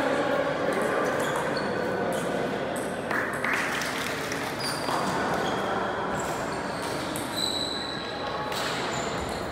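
Table tennis ball being struck back and forth in rallies: sharp, short pings of the celluloid/plastic ball off the paddles and bouncing on the table top, coming in quick irregular runs.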